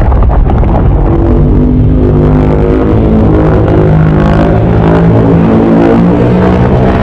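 A long, very loud, deep burp-like growl meant as Godzilla's burp: a low rumble, with a pitched, wavering tone over it from about a second in.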